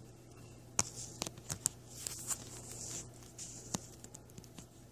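Close handling noise: light rustling with a few sharp clicks and taps, as the doll and the recording device are moved about near the microphone.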